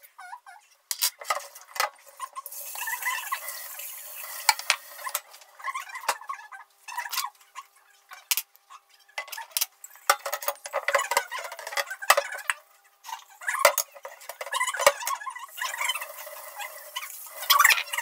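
Dishes and cutlery clattering and clinking in a kitchen sink during hurried hand-washing, with short squeaks and two stretches of the tap running. The sound is thin, with no low end.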